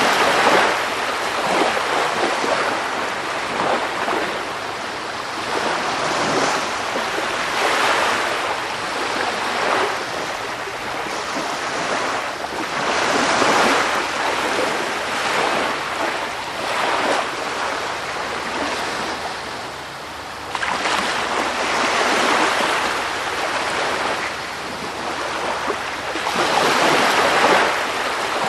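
Sea surf: a continuous rush of water that swells and eases every few seconds as waves break and wash back.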